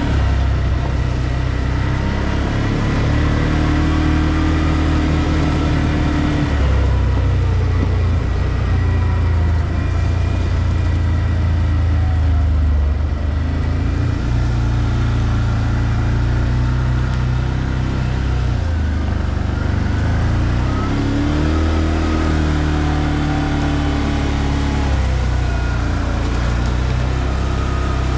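ODES 650 ATV's engine running under way, heard from the rider's seat, its pitch rising and falling a few times as the throttle opens and closes.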